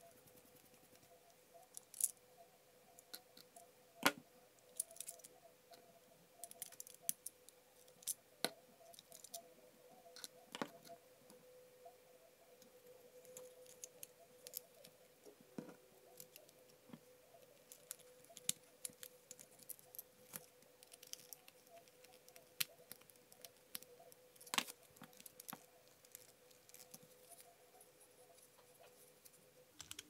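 Small clicks and taps of 3D-printed plastic joystick parts handled and fitted together by hand, with a small screwdriver working a screw at the start. A faint steady hum runs underneath.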